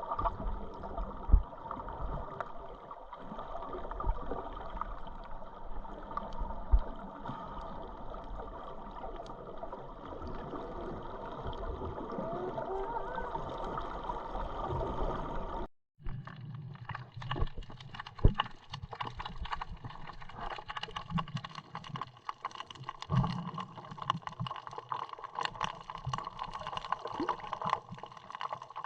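Underwater sound picked up by a snorkeler's camera: a steady wash of moving water and gurgling. After a sudden cut about halfway through, a denser crackle of many short clicks runs under the water noise.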